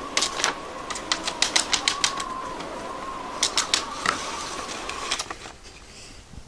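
A cardboard puppet and paper scenery tapping and clattering against a homemade paper toy theatre as they are moved by hand. There is a quick run of taps, a few more bunched together in the middle and a last one about five seconds in, over a thin steady tone that stops at about the same point.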